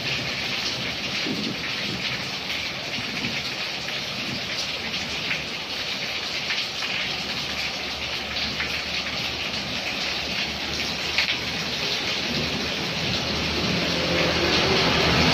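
Steady rain falling on a wet street, an even hiss of drops. Near the end a vehicle engine approaches and grows louder.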